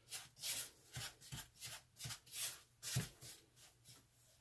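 A spatula scraping and stirring salt in a plastic cup, about two to three strokes a second, dying away near the end.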